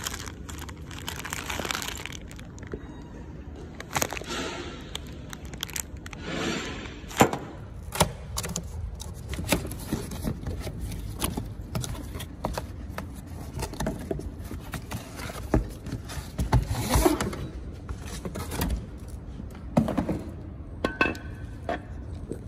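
Plastic bag crinkling and cardboard and plastic packaging rustling and scraping as new suspension parts are handled and unpacked, with scattered sharp clicks and knocks, the loudest about seven seconds in.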